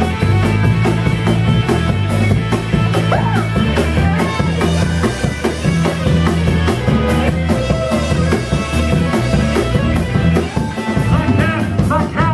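Live psychobilly band playing loud with electric guitar, bass guitar and a drum kit over a steady beat.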